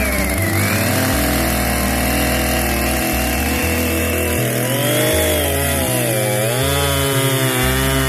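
Gas chainsaw cutting through a log at high revs; from about halfway its pitch dips and rises again and again as the chain bogs and frees in the cut.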